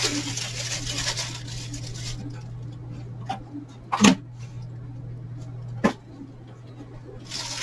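Packaging rustling as a cardboard box and its contents are handled, followed by a few sharp clicks and one louder short knock, over a steady low electrical hum.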